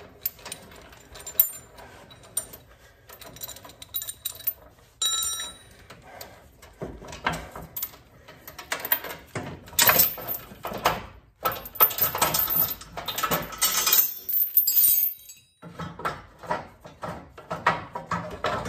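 Steel chain clinking and rattling as it is unwrapped by hand from a truck's front coil spring and lower control arm, with metal-on-metal knocks and a ringing strike about five seconds in. The clinking is busiest in the second half.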